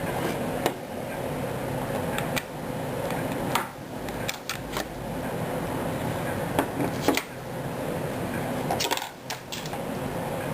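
Light clicks and clinks of small metal trigger-assembly parts being handled and fitted, scattered irregularly over a steady background hum.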